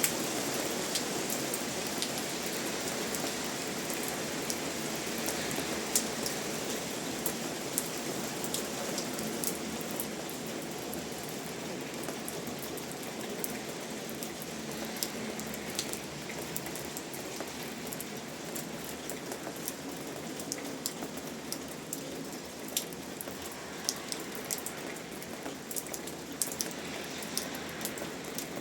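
Steady rain falling, with the distinct sharp taps of individual raindrops hitting a surface over the even hiss of the downpour.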